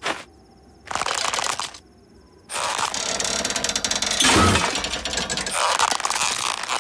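Cartoon firework sound effects: crackling and fizzing, first in short bursts, then dense and continuous from about halfway, with a dull low thump near the middle. A faint thin high whine can be heard in the pauses.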